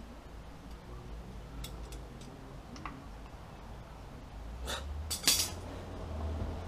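Sparse metallic clicks and clinks of a hand tool working a retainer on a truck's rear drum brake assembly, with two louder metal clinks about five seconds in, over a low steady hum.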